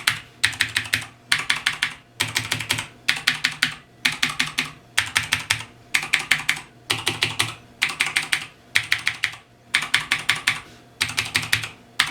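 Razer BlackWidow mechanical keyboard with Cherry MX Blue clicky switches being typed on in quick bursts of several keystrokes, about one burst a second.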